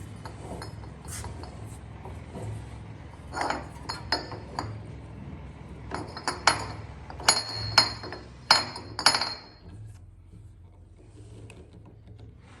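Steel pipe clanking and clinking against the cold saw's metal vise as it is set in place and clamped: a string of sharp metallic knocks with a brief ringing after each, mostly in the middle of the stretch.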